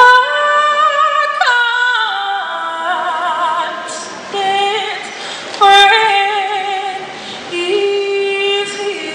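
A woman singing solo and unaccompanied into a handheld microphone, holding long notes with a wide vibrato, with strong new phrases at the start and again past the middle.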